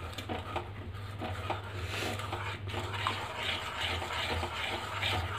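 A spoon stirring and scraping thick besan halwa around a kadhai, in a steady run of scraping strokes, kept going so the halwa does not stick to the bottom of the pan.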